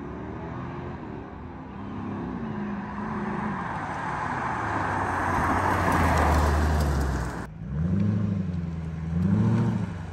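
Mercedes SLK 55 AMG's M113 V8, breathing through a RennTech carbon fiber airbox, accelerating toward and past. The engine note rises and falls as it revs and grows loudest as the car nears. After a sudden break about seven and a half seconds in, the revs rise and fall twice more near the end.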